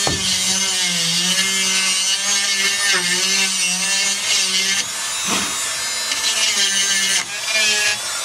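Handheld power tool cutting into fiberglass, its motor whine wavering and dipping in pitch under load over a harsh cutting hiss. It breaks off briefly about five seconds in and again just after seven seconds.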